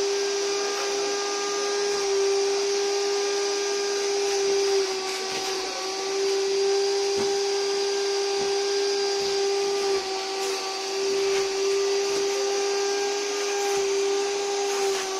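Drum-type wet-and-dry vacuum cleaner running steadily, a constant motor whine with a hiss of rushing air, as its hose nozzle is worked over a fabric sofa during wet cleaning.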